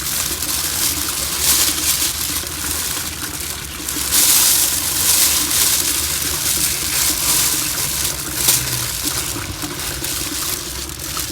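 Water splashing and trickling, unsteady, with a louder stretch about four seconds in.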